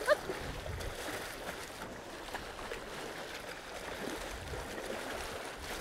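Fast river current flowing with a steady rush.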